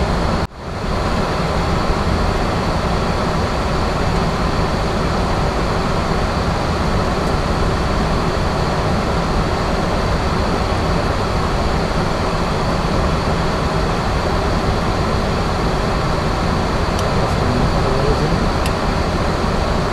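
Steady, even flight-deck noise of a Boeing 737-800 in flight: air rushing past the cockpit and the hiss of the air conditioning, with the jet engines underneath. It drops out briefly about half a second in.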